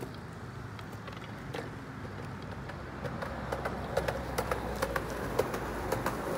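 Skateboard wheels rolling on rough asphalt: a steady rumble, with sharp clicks and ticks growing more frequent from about halfway on.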